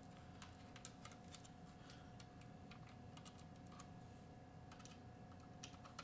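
Near silence, broken by faint, irregular small clicks and ticks of a hand screwdriver driving small screws into the bottom of a 2.5-inch SSD, over a faint steady hum.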